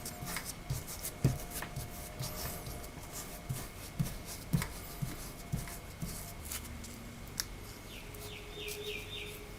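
Fingers pressing and rubbing a hook-and-loop (Velcro) strip down onto a LiPo battery pack, bonding it with contact adhesive: irregular soft rubbing and small clicks.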